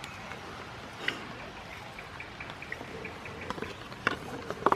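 Light rain pattering, scattered drops ticking, with a few louder clicks near the end.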